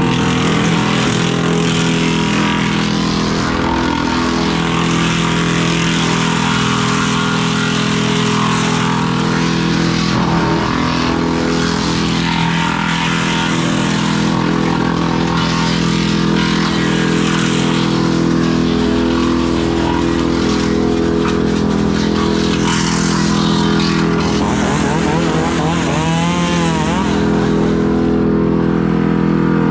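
Tractor engine running steadily under load, driving a PTO wood chipper as brush is fed through, with the chipper's noise over the engine tone. A wavering pitch comes in briefly about 25 seconds in.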